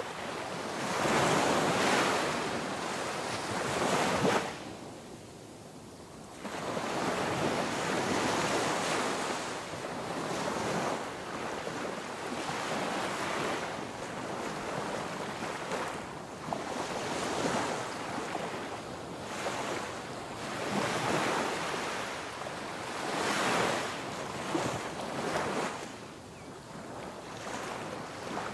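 Ocean waves breaking and washing on a shore, swelling and receding every few seconds, with a quieter lull about five seconds in.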